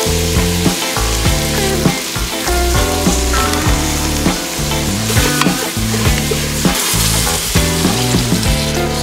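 Chopped onion, sweet peppers and tomatoes sizzling in a stainless steel stockpot as spices and curry powder are stirred in, with background music playing over it.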